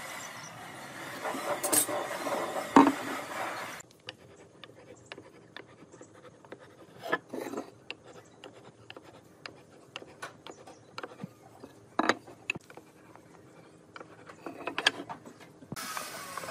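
Hand tools knocking and scraping on wooden boards while marking out: scattered short knocks and clicks, the loudest about three seconds in. A steady background noise fills the first four seconds and the last second, cutting off abruptly in between.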